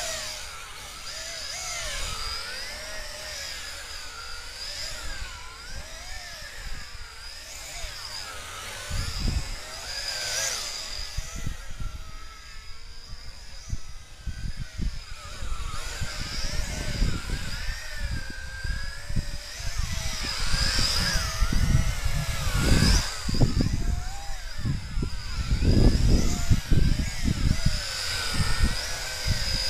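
Tarantula X6 quadcopter's motors and propellers whining, the pitch wavering up and down as it manoeuvres. In the second half, loud low rumbling gusts buffet the microphone as it flies close.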